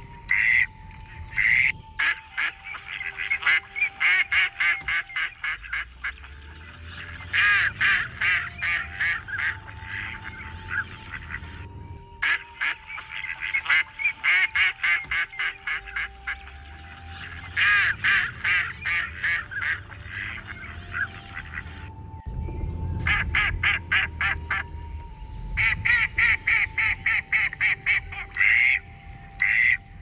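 Ducks quacking and geese honking in rapid runs of calls, with short breaks between the runs.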